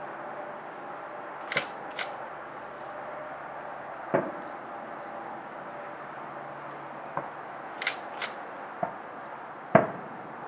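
Distant fireworks going off: about eight sharp, irregular bangs, some in quick pairs, with the loudest one near the end, over a steady background hiss.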